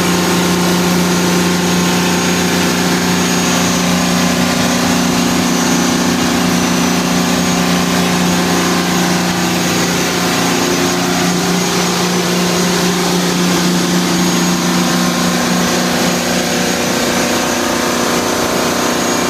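Detroit Diesel generator set running at steady governed speed, a constant loud engine drone with an unchanging low note.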